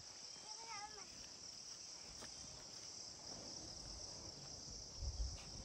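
Steady, high-pitched insect chorus. A short wavering vocal sound comes just under a second in, and a low thump about five seconds in.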